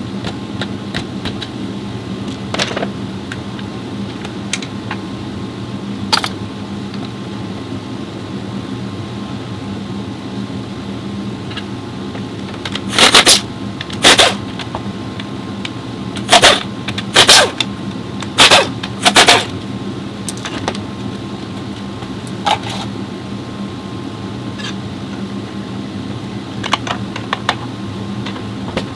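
Steady low mechanical hum, with about six short, loud bursts of noise in quick succession midway through and a few faint clicks.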